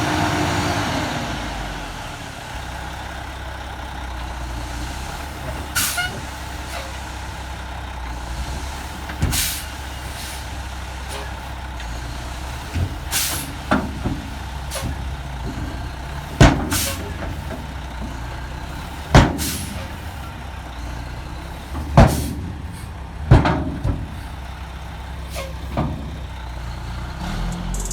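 Mack E7 diesel engine of a CH612 truck settling from higher revs to a steady idle in the first two seconds. Over the idle come about ten sharp, short bangs at irregular intervals of one to three seconds.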